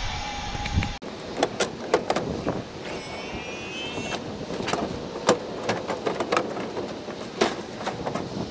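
A low rumble that cuts off suddenly about a second in, followed by a run of scattered light knocks and clicks with a brief squeak about three seconds in.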